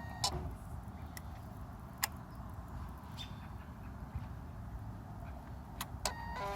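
Steady low background rumble with a few isolated sharp clicks, and no fuel-pump priming whir: the motorcycle's fuel pump stays silent when the ignition is switched on. A short squeaky chirping sound comes near the end.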